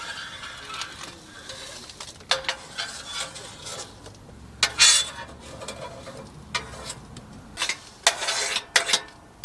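Camp cookware and utensils clattering and scraping, in irregular bursts with the loudest near the middle and toward the end.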